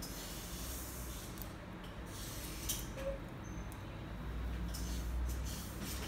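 Hairdressing scissors cutting through hair: several short, crisp snips a second or so apart, over a low steady hum.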